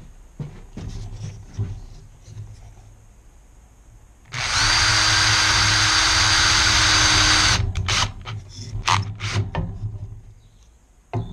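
Cordless drill running for about three seconds, its motor whine rising as it spins up and then holding steady. A few scattered knocks and clatters come before and after it.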